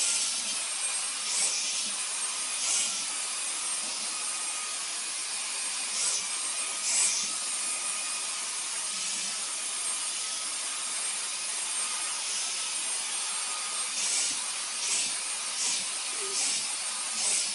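Cordless handheld vacuum cleaner running steadily, its brush nozzle drawn over a cat's fur, with brief louder hisses every few seconds.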